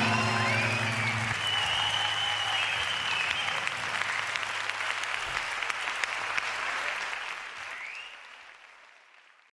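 Audience applauding, a dense patter of claps that fades away over the last two seconds.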